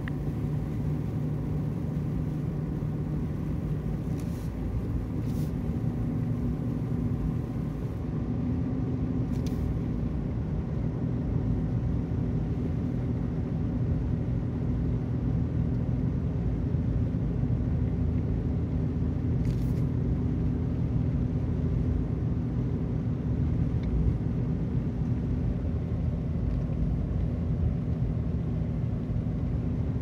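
Jeep Liberty driving steadily on a snow-covered road, heard from inside the cabin: a steady engine hum with tyre and road noise. The engine note rises slightly about eight seconds in, and there are a few faint ticks.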